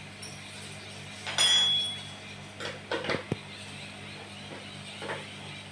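Metal clinks and knocks from a steel-barred dog cage as the dog is let out: one loud ringing clink about a second and a half in, then a few lighter knocks around three seconds, over a low steady hum.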